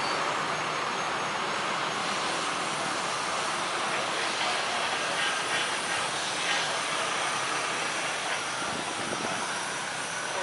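Jet engines of a Boeing 737-800 airliner running at low taxi thrust as it rolls on the ground: a steady rushing hiss with a faint high whine.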